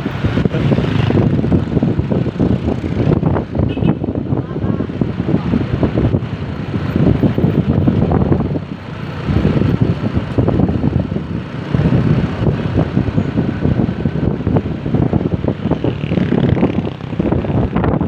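Heavy wind buffeting on the microphone over the rumble of a moving vehicle on the road, loud and unsteady throughout.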